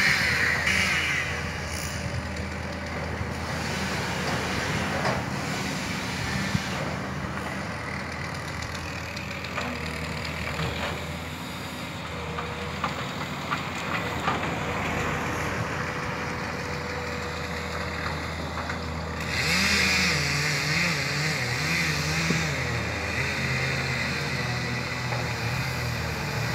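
Hydraulic excavator's diesel engine running steadily, with scattered short knocks. About twenty seconds in it gets louder and its pitch wavers up and down as the machine works.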